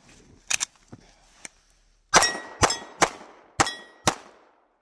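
Five pistol shots in quick succession, about half a second apart, each with a short ringing tail, after a few faint clicks from gloved hands handling the gun.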